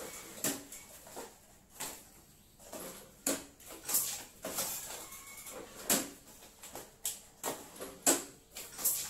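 Popcorn packets being packed by hand at a manual packing machine: irregular short clacks from the machine and crinkling of thin plastic, coming every half second to a second with small pauses.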